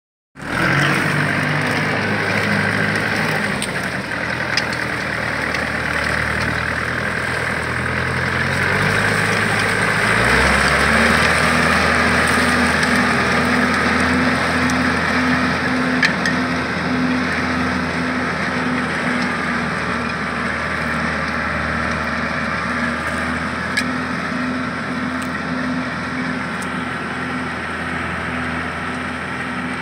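Tractor's diesel engine running steadily under load as it pulls a stubble shaver cutting sugarcane stubble at ground level, with the implement's steady whir mixed in; the engine note changes about ten seconds in.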